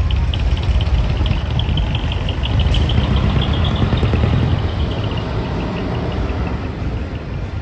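Large trucks' diesel engines running as the trucks roll slowly past, a deep steady rumble. Over it a fast, even high-pitched ticking fades away about six seconds in.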